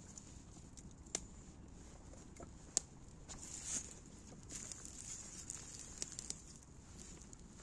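Faint scattered clicks and ticks over a low hiss, with two sharper clicks in the first three seconds.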